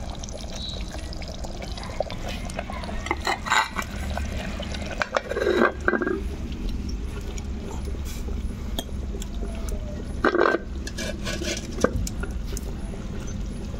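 Chicken curry simmering in a clay pot over a wood fire, with a steady bubbling and small crackles. A metal plate is set on the pot as a lid, clinking and scraping against the rim about five seconds in and again near ten seconds.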